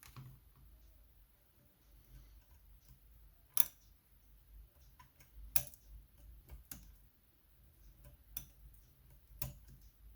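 Sharp metallic clicks and small taps from hand tools working the parts of a pin-tumbler euro cylinder lock, about five louder clicks at irregular intervals among fainter ticks.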